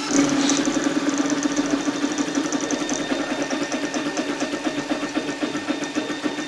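High-speed 3D printer printing: the stepper motors drive the print head rapidly back and forth over the infill, a steady mechanical whine with a fast, even pulse at each change of direction.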